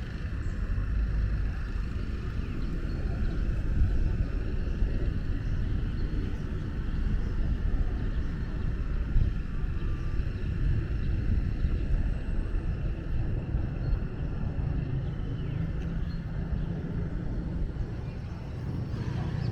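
Steady low outdoor rumble with a fluctuating noisy haze over it, with no single event standing out.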